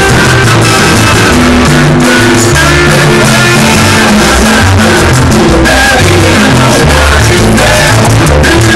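Live salsa band played loud through stage speakers: a steady bass and percussion groove with a man singing over it.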